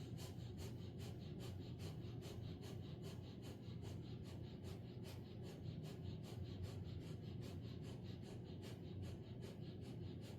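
Kapalbhati pranayama breathing: quick, forceful nasal exhalations in an even rhythm of about three a second, faint, with the inhalations left passive between them.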